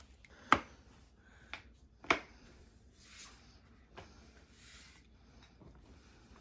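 Hard plastic clicks and knocks from a white plastic baby chair's frame and tubes being handled and fitted together, with soft rubbing and rustling between. Two sharp clicks, about a second and a half apart, are the loudest.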